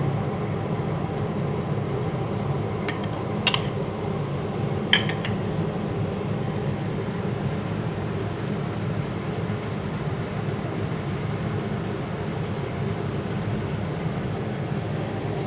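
Steady low background hum throughout, with two short clinks of kitchen utensils or dishes a few seconds in.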